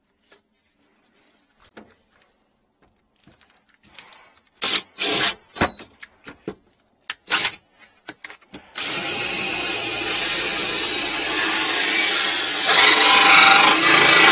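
Cordless drill with a hole saw starting up about nine seconds in and running steadily, growing louder and rougher a few seconds later as the saw bites into the wooden floor of the sink cabinet. Before it start, a scatter of knocks and handling noises.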